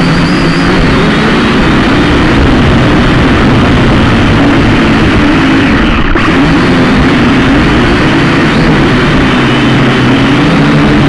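Multirotor drone's propellers humming loudly, their pitch wavering up and down as the motors adjust, over a steady rushing noise.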